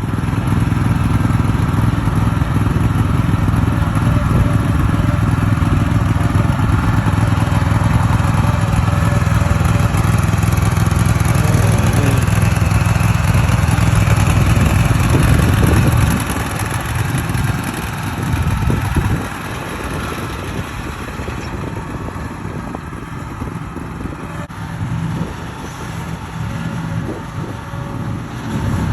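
Toro zero-turn mower's engine running steadily. About sixteen seconds in it drops in level and runs less evenly.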